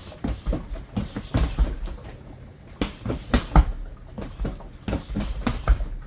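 Punches landing on a Century BOB XL free-standing punching mannequin: irregular thuds in quick combinations of several blows, with short pauses between them.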